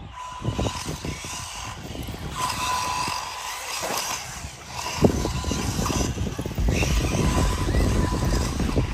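Radio-controlled cars driving, with a sharp knock about five seconds in, after which the low rumble gets louder.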